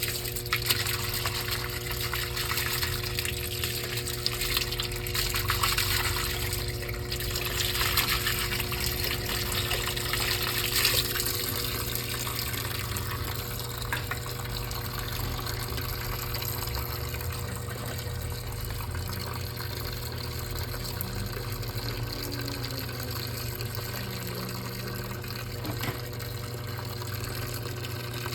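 Brastemp Clean washing machine with water rushing and splashing in its tub, heavier in the first dozen seconds and then steadier, over a constant low hum.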